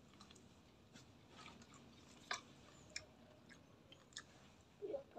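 Faint chewing of a mouthful of food eaten by hand, with scattered crisp clicks, the sharpest a little over two seconds in.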